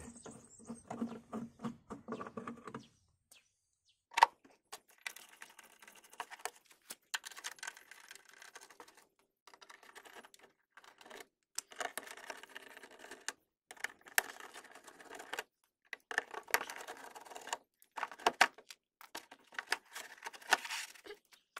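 Clicks, taps and rustling of a hand tool and hands working on a car's plastic rear wheel-arch liner as its Torx screws are undone and the liner is worked loose, with one sharp knock about four seconds in. A short steady whir comes in the first three seconds.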